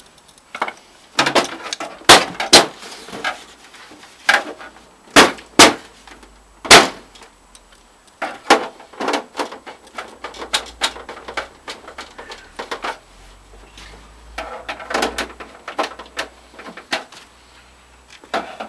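Plastic back casing of a CRT television being handled and refitted: a series of sharp knocks, clicks and clatters of plastic against plastic. The loudest knocks fall in the first seven seconds, with another run of clatter later on.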